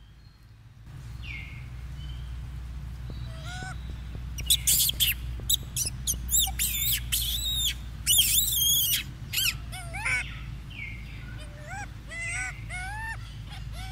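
Baby macaque crying: a run of loud, shrill screams through the middle, then softer arched whimpering calls about twice a second near the end, over a steady low rumble.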